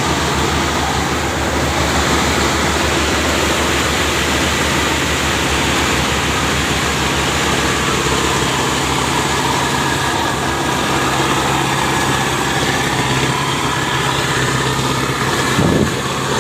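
A rice harvesting machine's engine running steadily, with a brief thump near the end.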